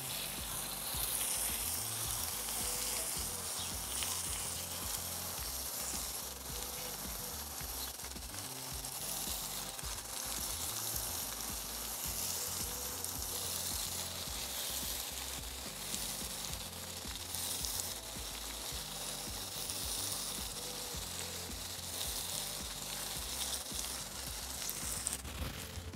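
Potatoes, pork and bell peppers frying in a cast-iron kazan, a steady sizzle, as tomato slices are laid in on top by hand.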